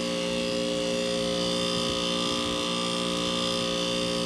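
Outdoor heat pump units running: a steady electrical hum from the compressor, with one strong tone over several fainter ones and a higher hiss of fan and airflow.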